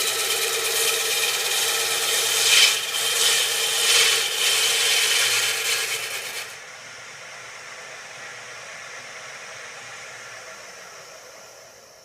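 A turning tool cutting into a sweet chestnut bowl blank spinning on a Poolewood Euro 2000 lathe as the inside is hollowed: a loud scraping cut for about six seconds. The cut then stops, leaving the lathe running more quietly with a high thin whine, which dies away near the end.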